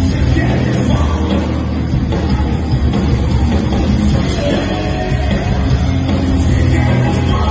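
A rock band playing live: electric guitars and drums, loud and dense, with no break.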